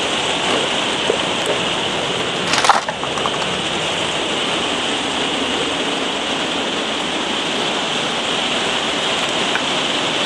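Heavy rain falling steadily during a thunderstorm, with one brief sharp crack about two and a half seconds in.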